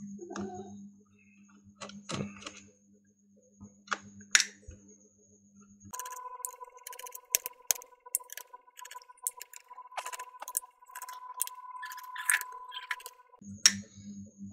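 Scattered small clicks and taps of plastic laptop parts and tools being handled while a laptop is taken apart. A faint steady tone sounds from about six seconds in until near the end.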